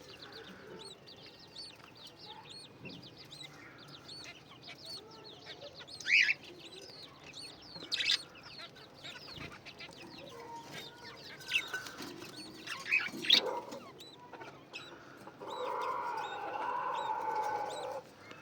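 Young birds begging while being fed: thin, high chirps repeated a few times a second throughout, with several louder, sharper calls. Near the end comes a steadier, lower sound lasting a couple of seconds.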